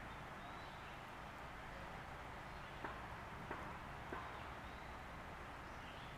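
Quiet outdoor ambience: a steady soft hiss with a few faint, distant bird chirps, and three short clicks spaced a little over half a second apart around the middle.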